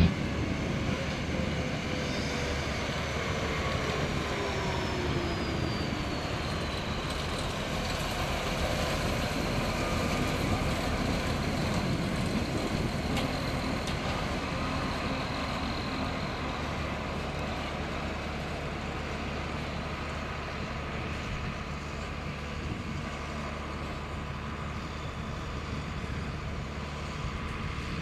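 Big farm tractor hauling a four-axle Balzer 12000 manure tanker drives past on a gravel road. Its engine note falls in pitch as it goes by over the first few seconds, then a steady rumble of engine and tyres on gravel slowly fades.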